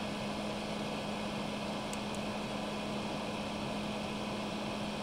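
Steady machine hum: a constant hiss with one low, even tone underneath, like a small fan running on a workbench.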